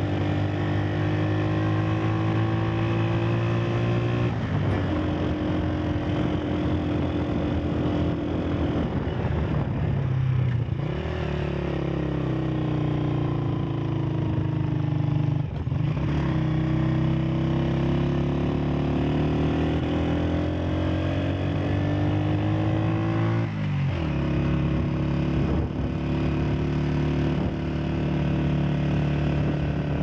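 Motorcycle engine running while riding. Its pitch holds steady at first, breaks a few times, then climbs slowly for about ten seconds before dropping sharply about three-quarters of the way in, as with a gear change.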